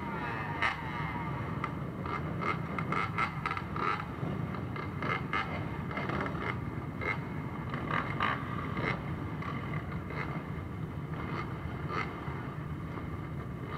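Many quad (ATV) and dirt-bike engines running together at idle, a steady low drone with frequent short crackles.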